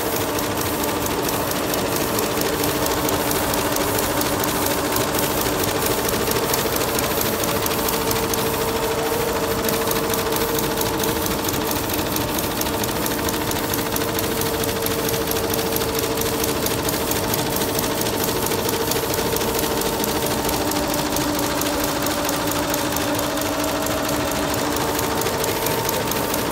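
Multi-head Yuemei computerized embroidery machine with sequin attachments running, its needles stitching at speed in a fast, even clatter over a steady motor hum.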